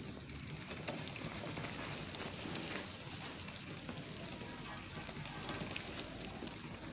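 A flock of domestic pigeons pecking at scattered mixed grain on hard ground: a dense, continuous run of small beak ticks and grain rattles.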